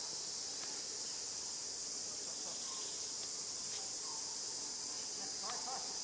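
Insects buzzing in a steady, high-pitched drone, with a few short, faint chirping calls scattered through it.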